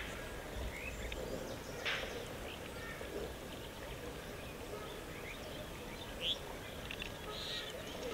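Outdoor field background with a steady hiss and a few short bird chirps, the clearest about two seconds in and again just past six seconds.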